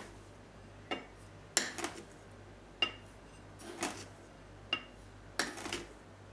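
Plastic spoon scooping sugar out of a glass jar into a small glass cup: about six short knocks and scrapes against the glass, spread over the few seconds, a couple of them with a brief glassy ring.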